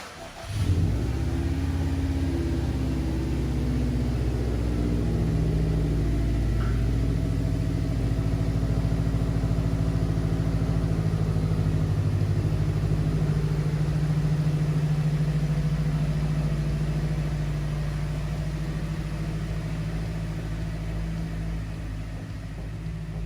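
Car engine starting about a second in, then idling steadily, getting a little quieter over the last few seconds.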